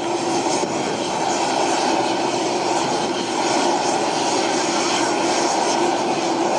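AgustaWestland Merlin (AW101) helicopter running loud and steady: turbine and rotor noise with a steady droning hum underneath.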